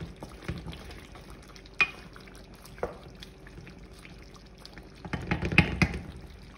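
Wooden spoon stirring chicken curry in a metal pan, scraping and knocking against the pan with scattered clicks. A louder run of knocks comes near the end.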